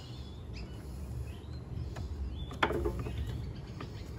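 Birds chirping in the background over low outdoor noise, with one sharp click a little over halfway through as small carburettor parts are handled and fitted by hand.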